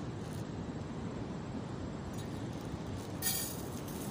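Steady low rumble of wind and surf. About three seconds in, a brief crinkling rustle as a plastic bag is tipped to pour into a metal camping pot.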